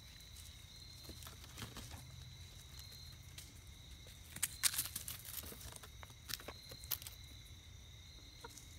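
Scattered dry crackling and rustling of leaf and straw mulch, with the sharpest crackles about four and a half seconds in and again near seven seconds. Under it runs a steady high insect trill that swells and fades every second or so.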